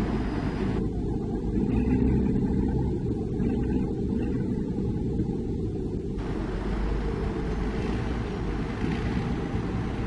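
Heavy diesel earthmoving equipment running, a steady low rumble with no change in pace.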